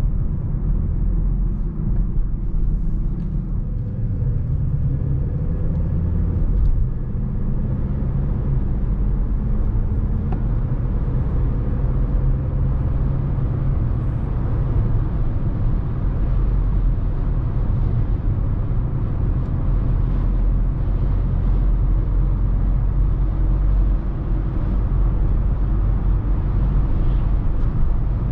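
Mercedes-Benz GLA250's 2.0-litre turbocharged four-cylinder petrol engine running under way, with steady tyre and road rumble, heard from inside the car. The engine note shifts several seconds in, then holds steady.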